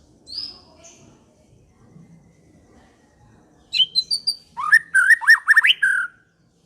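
Murai songbird (Copsychus) singing: a short high whistle about half a second in, then a run of quick, varied whistled phrases with rapid up-and-down slurred notes lasting about two and a half seconds in the second half.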